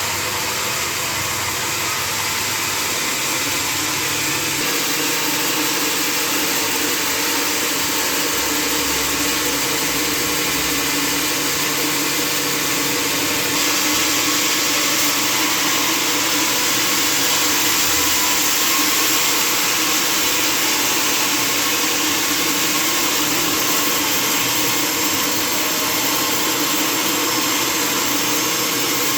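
Sawmill machinery running with a loud, steady mechanical noise that grows brighter and a little louder about thirteen seconds in.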